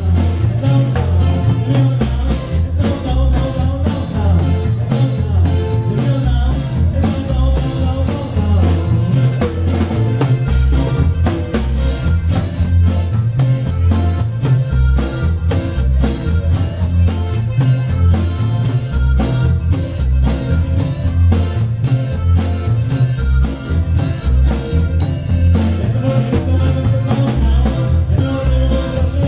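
Live norteño band music played loud: a bass line moving between notes, drum kit and guitar over a steady dance beat.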